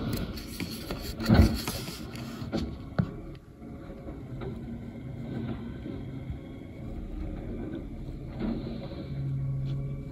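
Mack automated side-loader garbage truck running while its hydraulic arm lifts a wheeled bin, tips it into the hopper and lowers it again. A loud bang comes about a second and a half in, a sharper knock near three seconds, and a low steady hum near the end.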